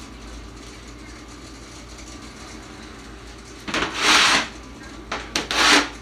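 Dishwasher running mid-cycle with a steady low hum while it overflows with suds from dish soap. Two loud bursts of swishing noise come about four and five and a half seconds in.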